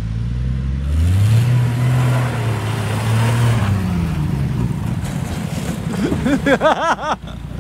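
1966 Ford F350 truck's engine revving up about a second in, holding for a couple of seconds, then easing off. Near the end there is a brief, fast-wavering high-pitched sound.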